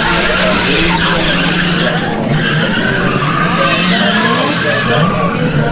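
Two drift cars' engines revving up and down at high throttle while their rear tyres skid and smoke through a tandem drift.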